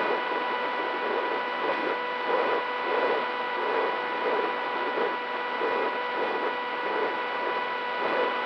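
Onboard camera audio of a REPTILE S800 Sky Shadow FPV flying wing in flight, driven by a DYS 2206 2300KV motor with a Gemfan 6x4 propeller. A steady whine of several fixed tones sits over a rough rushing, rattling noise that swells about one and a half times a second.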